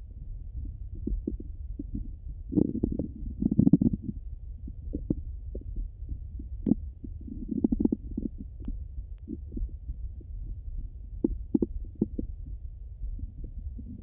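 Bowel sounds of a hungry, empty stomach heard through a Littmann stethoscope on the abdomen: irregular gurgles and sharp clicks over a low, muffled rumble. The loudest bursts of gurgling come about three and eight seconds in.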